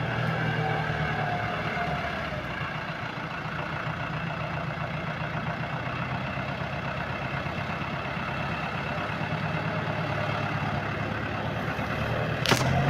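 Landini tractor's diesel engine running steadily under load, pulling a plough through dry ground. A single sharp click comes near the end.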